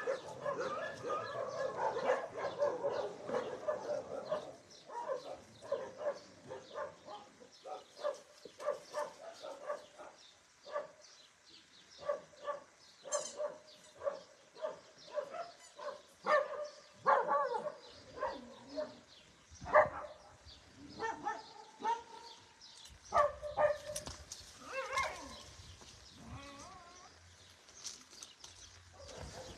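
Dogs barking over and over. The barks crowd together in the first few seconds, then come singly with short gaps.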